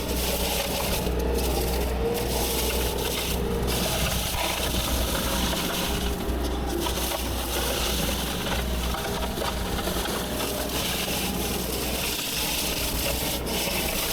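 A heavy diesel machine running steadily while woody brush and branches are crushed and broken.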